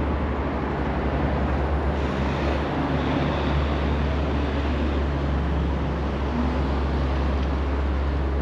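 Steady road traffic on a busy city street: vehicles passing with a continuous low rumble and an even hiss of tyres.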